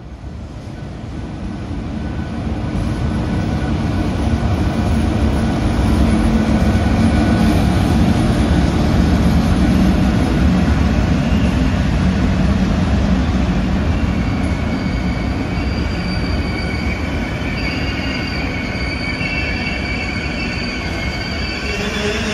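An arriving passenger train, headed by a MÁV V43 electric locomotive and a V63 'Gigant' electric locomotive, rolling past with its coaches. A heavy rumble builds over the first few seconds. A high wheel squeal sets in a little past the middle and holds on as the coaches pass.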